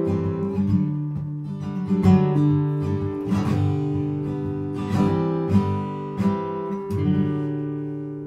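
Solo acoustic guitar playing the closing chords of a folk song, strummed and picked. The last chord comes about seven seconds in and is left to ring out and fade.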